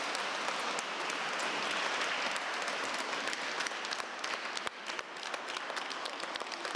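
Many children applauding together: a dense, continuous clatter of hand claps, easing slightly about five seconds in.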